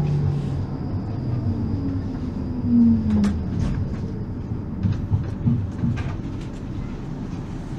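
Electric tram braking to a stop: its motor whine falls slowly in pitch and fades out a few seconds in over a low running rumble. A few sharp knocks and clacks follow from the running gear and rails as it creeps to a halt.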